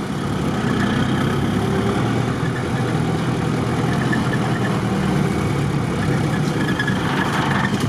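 Off-road 4x4's engine running steadily at low revs, heard from inside the cab, as the vehicle crawls slowly over a rough, log-strewn forest track.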